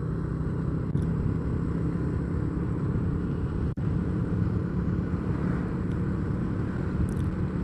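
Steady road and engine noise from a moving vehicle: a low rumble with a constant hum, broken by a momentary dropout a little under four seconds in.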